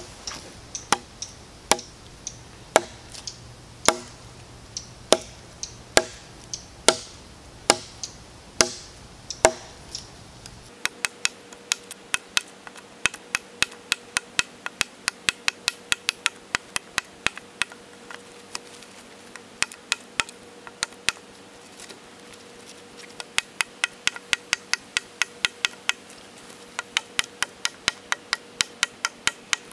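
A large knife chopping into a dead log, each blow a sharp strike into the wood. The blows come about once a second for the first ten seconds, then faster, in quick runs of two or three a second.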